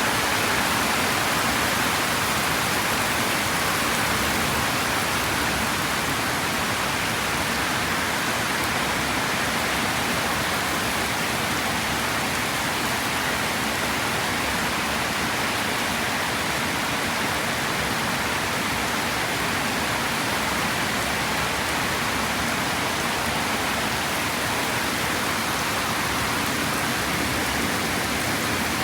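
Heavy tropical downpour: rain lashing down in a steady, dense hiss with no break or thunderclap.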